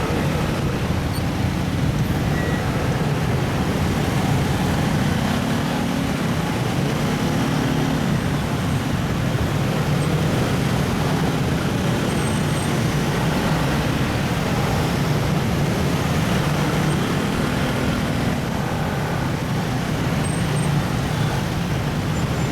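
Steady road traffic noise: engines and tyres of cars in a traffic jam, a continuous low rumble with faint engine hums rising and falling.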